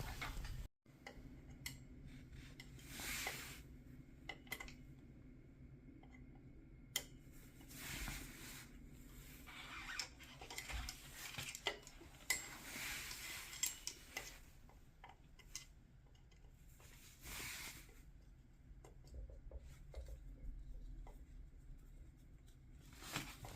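Faint, scattered metallic clinks and soft rubbing of tools and scooter parts being handled, irregular with no steady rhythm.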